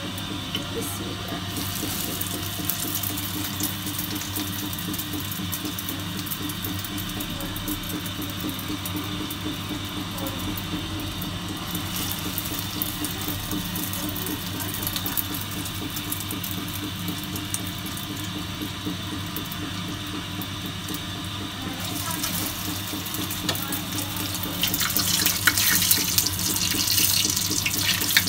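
Egg-and-breadcrumb-coated potato kababs shallow-frying in hot oil in a pan: a steady sizzle. It grows louder and crackly with spatter from about 24 seconds in.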